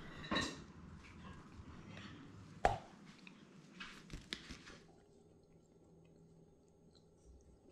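Border collie gnawing a hemp rope toy: soft wet chewing with scattered clicks, and one sharp knock about two and a half seconds in. After about five seconds it drops to faint room hum.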